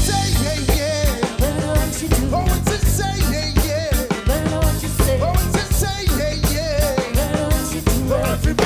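Live ska band playing: a sung melody over drum kit, bass and electric guitar, with a steady beat.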